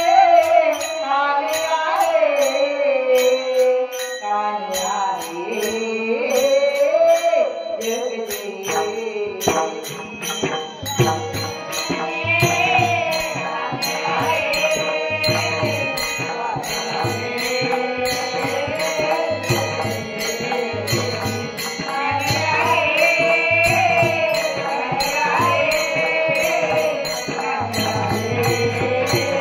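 Marathi devotional bhajan (a gaulan) sung by a woman, with small hand cymbals ticking in steady time; a drum beat joins about ten seconds in.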